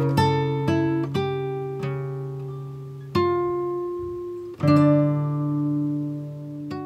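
Background music: an acoustic guitar tune of single plucked notes, then two ringing strummed chords about three and four and a half seconds in. The last notes die away near the end.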